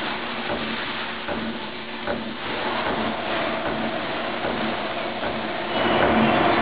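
Eastar CNC-200 slotting machine running, its ram stroking the cutting tool up and down through a workpiece on the rotary table: a steady machine noise with a faint regular knock on each stroke, louder near the end.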